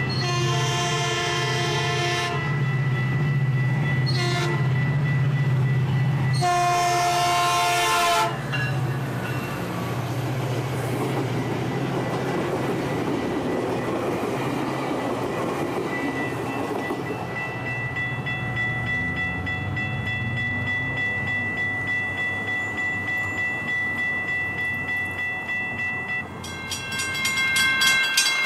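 Metrolink commuter train's locomotive horn sounding a long blast, a short one and another long one as a multi-note chord over the diesel's steady drone, while the grade-crossing warning bell rings. The train's cars then roll past with a steady noise of wheels on rail as the crossing bell rings on. Near the end a different crossing's bell takes over with a faster, higher-pitched pulsing ring.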